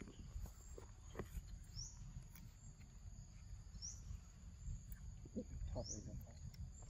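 Macaque eating fruit, with a few soft mouth clicks and crunches, over a low steady rumble. A faint high rising chirp repeats about every two seconds in the background.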